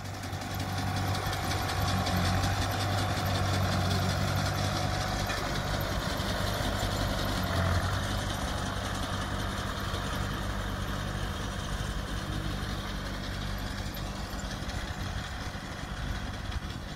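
Vineyard tractor's engine running steadily as it drives along the vine rows working a mounted vine-trimming rig that cuts the vines top, bottom and sides. It is loudest in the first few seconds and eases a little towards the end.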